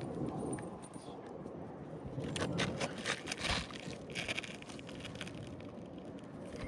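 Scraping and crackling of asphalt roof shingles being handled, a cluster of short scratchy scrapes about two to four seconds in.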